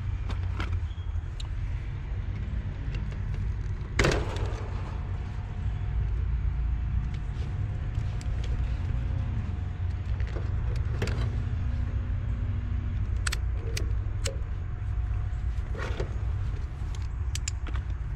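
Clicks and light knocks of a clamp meter's test leads and clips being handled against the electrical panel of an AC condenser unit while hooking up to test its run capacitor, with one sharp knock about four seconds in and several smaller clicks later. A steady low rumble runs underneath.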